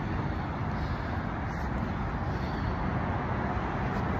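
Steady city street background noise: a low traffic rumble with no distinct events.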